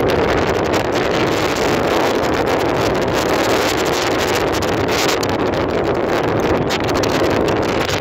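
Strong wind buffeting the microphone: a loud, steady rush of noise with no break.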